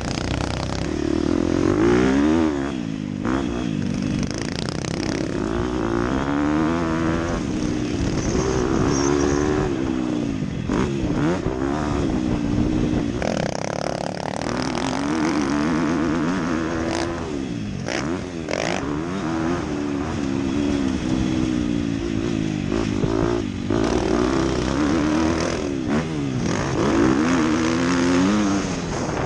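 Dirt bike engine revving up and backing off over and over as it is ridden around a motocross track, the pitch climbing through each straight and dropping into the turns.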